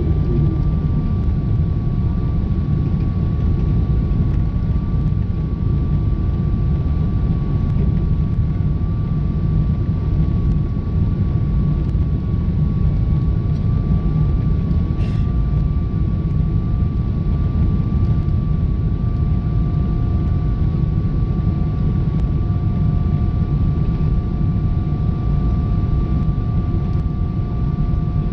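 Cabin noise of a Boeing 777-200 climbing after takeoff, heard from a window seat: a loud, steady low rumble of engines and rushing air with a thin steady whine running through it. A tone slides down in pitch at the very start.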